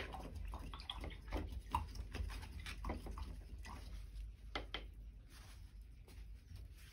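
Quiet room tone with a steady low hum and faint scattered taps and clicks.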